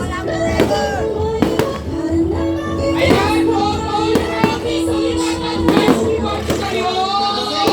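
Fireworks going off in scattered sharp bangs, about ten of them, over loud music with a singing voice.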